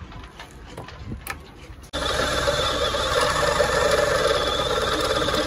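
Cordless drill starting abruptly about two seconds in, running at a steady speed for about four seconds, then stopping. Before it, a few light clicks of handling tools.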